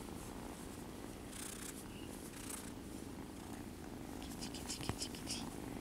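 Kittens purring steadily while being petted, a continuous low purr with soft rustling of fur under the stroking hand.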